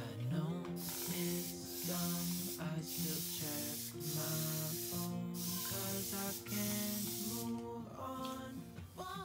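Fine-mist trigger spray bottle spraying a vinegar-and-water cleaning solution in a few long hissing bursts with short breaks between them.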